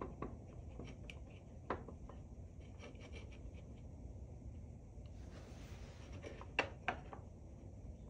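A small stick scraping and rubbing back and forth as it spreads thick glue along a fingerboard rail on plastic toy bricks. Faint scratching, with a few light clicks against the plastic, two of them in quick succession about two-thirds of the way in.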